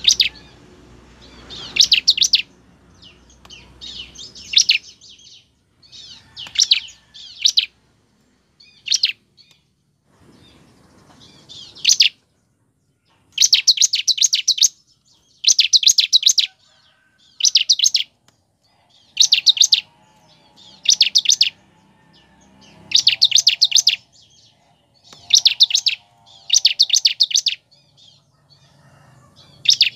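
Bar-winged prinia (ciblek) singing: bursts of rapid, high, dry chirping notes, each burst about half a second to a second long. The bursts come scattered at first, then repeat steadily every one and a half to two seconds from about twelve seconds in.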